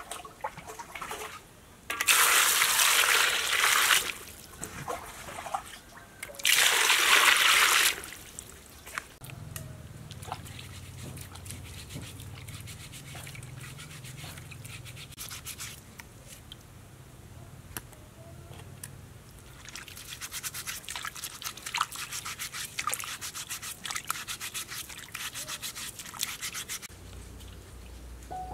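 Sapodilla fruits being washed by hand in a metal basin of water: two loud rushes of water about two and six seconds in, each lasting about two seconds, then splashing, dribbling and rubbing as the fruits are scrubbed. A low hum runs underneath from about ten seconds on.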